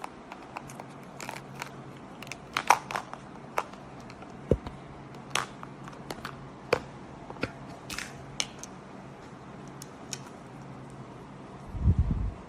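Irregular sharp clicks and crinkles of small plastic parts and packaging being handled, over a faint steady hum, with a heavier bump near the end.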